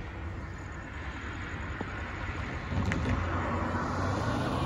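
A car coming along the road, its engine and tyre noise growing louder about three seconds in over a steady low hum.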